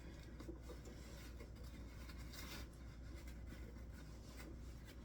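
Faint rustling and light scratchy handling noises, like fabric being smoothed and handled, over a steady low hum.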